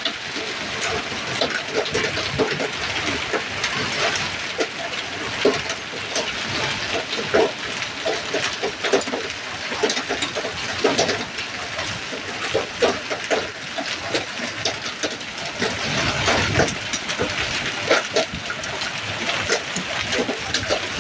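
Heavy rain mixed with hail pelting pavement and standing water: a dense, steady hiss of rain broken by many sharp ticks of hailstones striking.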